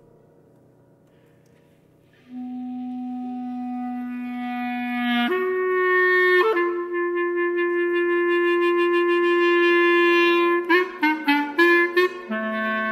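Clarinet playing long held notes in contemporary concert music, entering about two seconds in on a low note and stepping up to a higher held note a few seconds later. Near the end it plays a quick run of short detached notes, then settles on another long low note.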